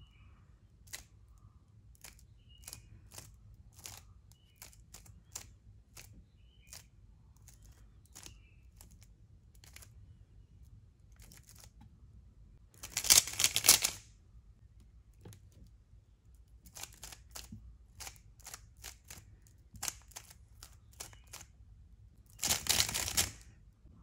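A stickerless 3x3 speed cube's layers being turned by hand. Separate sharp clicks of single turns come every half second or so. Two loud rapid runs of turning, each about a second long, come near the middle and near the end.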